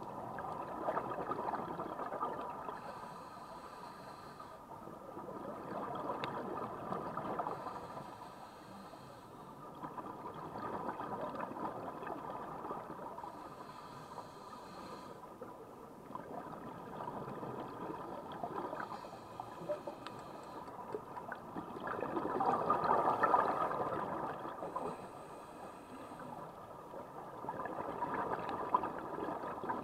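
Scuba diver breathing through a regulator underwater, heard muffled through the camera housing: exhaled bubbles rush out in slow waves about every five seconds, with a fainter hiss between them.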